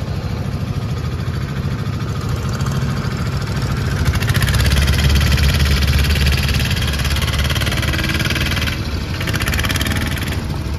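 A motorboat's engine running steadily with a low hum. About four seconds in it grows louder for several seconds, with a rushing hiss over it, then eases back.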